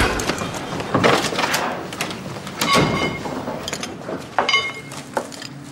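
Hurried footsteps and a door being opened and shut, with sharp latch clicks a little after four seconds in.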